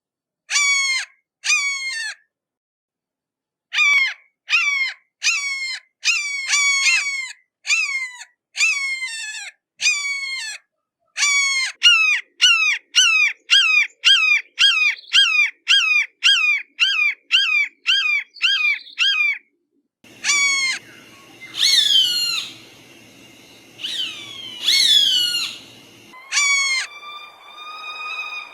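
Hawk screaming: a long run of short, sharply falling calls, at times about two a second, with a few longer, louder screams over a hissing background later on. Near the end a steady held musical tone comes in.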